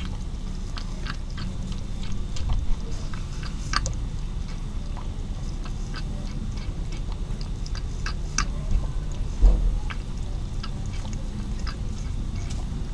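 A calico cat lapping milk from a plastic bowl: soft, irregular wet clicks of its tongue, over a low background rumble. A dull low thump about two-thirds of the way through.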